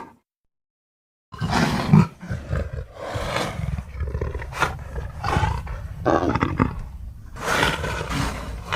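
Dimetrodon creature sound effect: after about a second of silence, a string of roars and growls, each call about a second long, over a steady low rumble.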